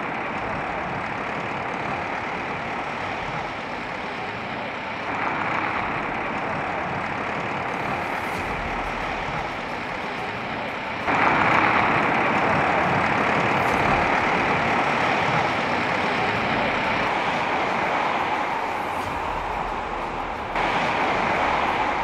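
Steady vehicle and engine noise that changes abruptly at cuts between shots. From about eleven seconds in it is louder, where a heavy snowplow truck with a front blade is running.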